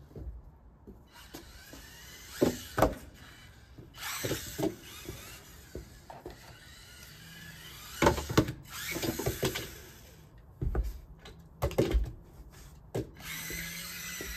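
Losi Micro-B micro RC buggy's small electric motor whining in bursts as it accelerates and slides across wet wooden deck boards, broken by repeated sharp knocks and clatters as the car hits and tumbles.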